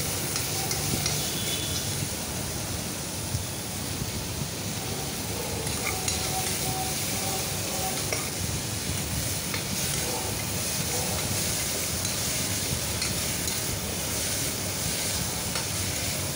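Sliced onions sizzling in ghee in an aluminium pressure cooker while a metal spoon stirs them, with occasional light scrapes and clicks against the pot.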